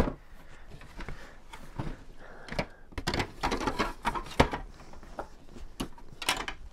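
Plastic Hot Wheels track pieces being pushed and wedged down into a worn cardboard box: irregular clicks, knocks and scraping with cardboard rustling, busiest about halfway through.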